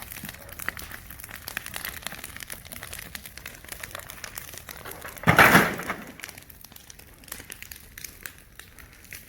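Burning debris crackling and popping in an open fire, with a stream of irregular sharp snaps. About five seconds in comes one short, much louder noisy burst.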